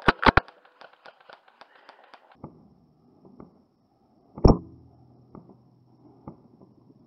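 Airsoft guns firing: three quick sharp shots right at the start, then a single louder shot about four and a half seconds in, with faint clicks and knocks between.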